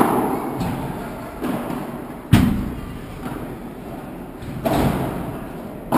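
Padel ball knocking off rackets, the court and the glass walls: a string of sharp knocks about a second apart, each echoing in a large covered hall, the loudest about two and a half seconds in.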